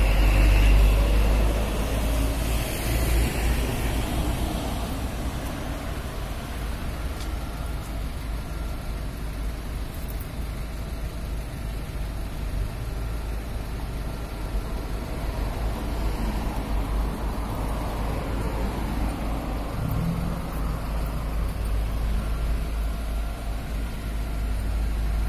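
Road traffic passing on a busy street, cars, vans and trucks, with a steady low rumble. It is loudest in the first second or so, as a vehicle goes by close.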